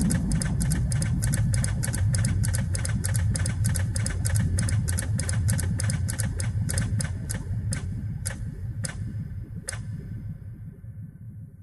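Outro of a dance-pop remix: a fast, even clock-ticking effect over a low bass pulse. Near the end the ticks thin out to a few spaced ones, and the track fades away.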